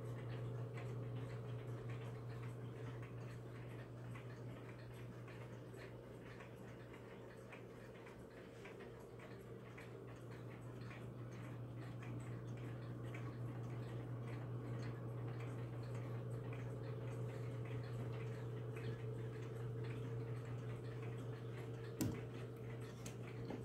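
Gustav Becker regulator wall clock's 8-day movement ticking steadily, with a steady low hum underneath. A single sharper click sounds near the end.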